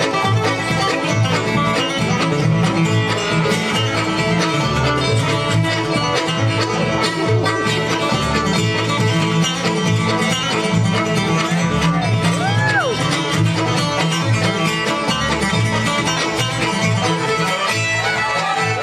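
Live bluegrass band playing a fast instrumental, with banjo, guitar and fiddle over a steady, pulsing bass line.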